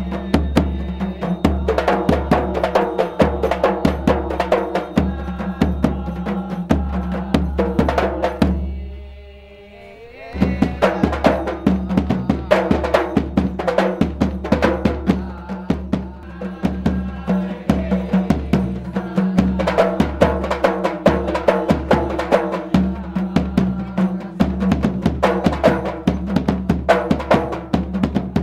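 An ensemble of hand-held frame drums (rebana) with a Yamaha marching bass drum playing a fast, steady rhythm. The sound fades out briefly about nine seconds in and comes back.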